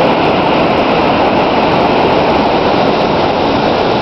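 Steady, loud rush of a waterfall and the river rapids below it, an even wash of water noise with no breaks.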